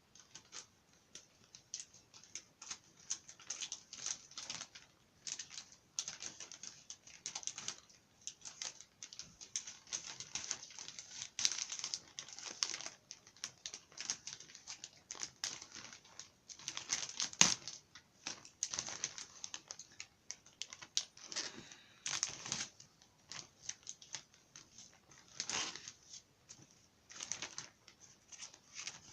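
Packaging crinkling and rustling as a bag is cut and pulled open by hand: irregular crackles and rustles throughout, with one sharper, louder crack a little past halfway.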